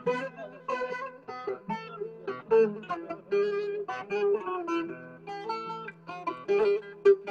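Instrumental break of a Turkish folk song: a plucked string instrument plays a quick melody of short, rapidly repeated notes over a steady low drone.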